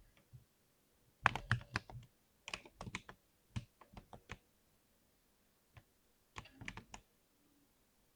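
Typing on a 60% keyboard: quick runs of keystrokes in four short bursts, with a single keypress just before the last burst.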